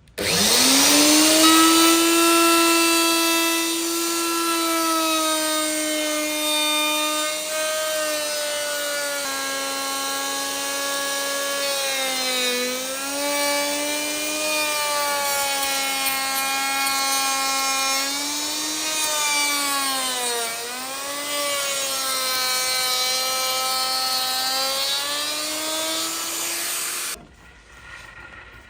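An electric woodworking power tool starts up and spins up to speed, running with a steady motor whine. The pitch dips briefly a couple of times as the tool is loaded in the wood. It shuts off near the end.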